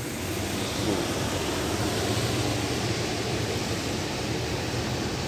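Car driving through deep floodwater: a steady wash of water churning and splashing along the car's side, with a low engine hum underneath.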